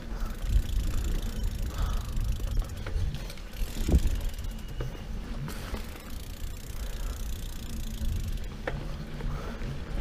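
Mountain bike rolling along a dirt singletrack: a steady, rough rumble of tyres and rattling bike, with a sharp knock about four seconds in and a lighter one later.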